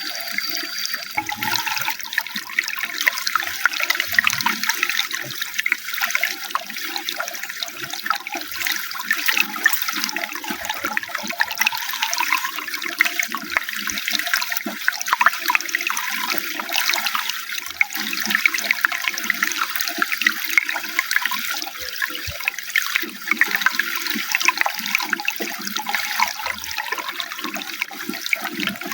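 Running water splashing and trickling steadily, a continuous dense rush with no break.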